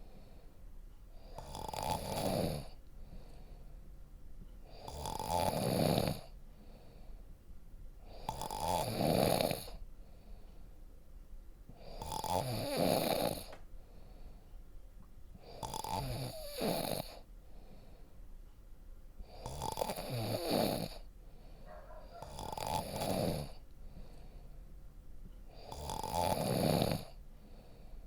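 A person snoring deeply, a steady rhythm of about eight snores, one roughly every three and a half seconds, with quiet breathing between them.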